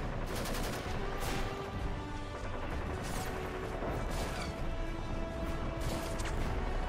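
Background action music with explosion and gunfire sound effects over it. Sharp bangs come several in quick succession in the first second, then at irregular intervals.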